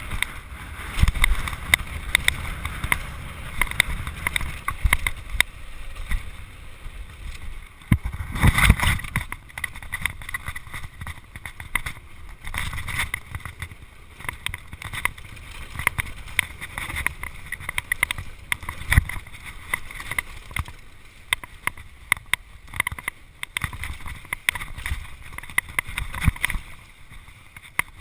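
Downhill mountain bike ridden fast down a rough dirt trail: tyres rolling over the ground with constant rattles and knocks from the bike, and a heavy thump about eight or nine seconds in.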